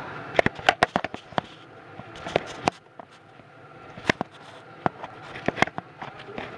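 Camera handling noise: irregular clicks, scrapes and crackles as the camera rubs and knocks against a leather jacket, in clusters with short gaps, over a faint steady hum.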